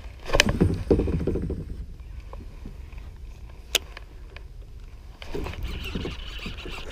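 Abu Garcia Black Max baitcasting reel whirring as a topwater frog is cast from a kayak, over in under two seconds. A single sharp click follows a couple of seconds later, and a faint steady hiss comes in near the end.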